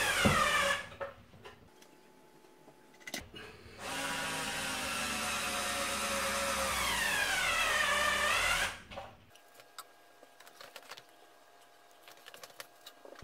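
Skil 360 Quick Select 4V cordless screwdriver whining as it drives screws. The first run drops in pitch and stops within the first second. After a pause with a few clicks, the motor runs again for about five seconds, its pitch sagging under load and then rising before it stops. A few light clicks and taps come near the end.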